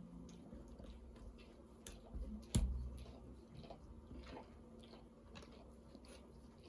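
Plastic Lego pieces being handled and pressed together: scattered light clicks and taps, with one sharp, louder snap about two and a half seconds in.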